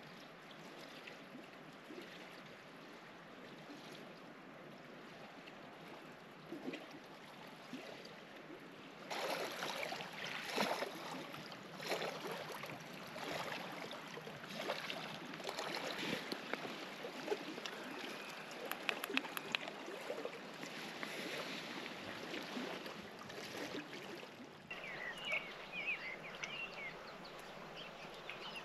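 Small waves lapping and splashing against a lakeshore, growing louder and busier about a third of the way in. Near the end the sound changes abruptly to a few short bird calls.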